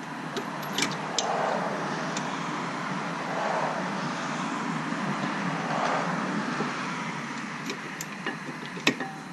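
Road traffic going by, a steady rush of tyre and engine noise that swells and fades several times. A few light clicks sound near the start, and one sharp click comes near the end.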